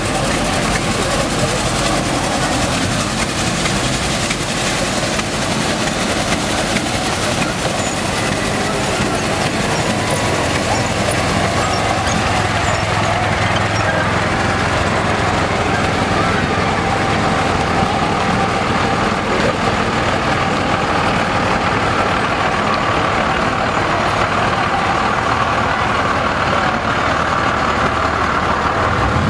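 Trucks rolling slowly past at close range, engines running steadily, with a white pickup towing a large enclosed trailer.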